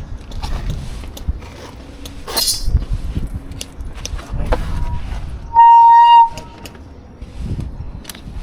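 Electronic buzzer on an airsoft prop bomb giving one loud, steady, high beep about two-thirds of a second long, about five and a half seconds in. Before it come handling clicks and rustling.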